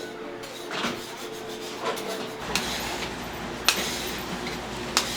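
Kitchen work at a food counter: scattered clinks and knocks of utensils and dishes, about five sharp ones, over a steady hum.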